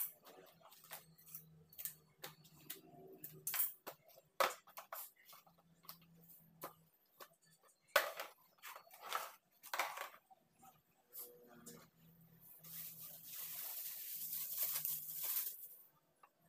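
Household handling sounds: scattered clicks, knocks and rustles as groceries and containers are handled, with a steady rushing hiss for about three seconds near the end.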